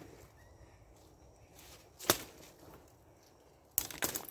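Sharp slashing strikes of a blade hacking through jungle undergrowth to clear a path: one about two seconds in, then a quick run of three near the end.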